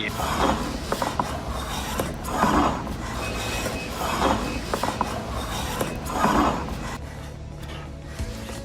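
Woodworking hand tool drawn across wood in four slow, even strokes about two seconds apart.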